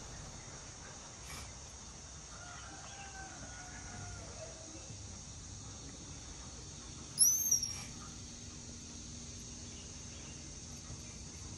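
A rooster crows faintly, a drawn-out gliding call about a quarter of the way in. About two-thirds through, a short, louder high-pitched squeak rises and falls.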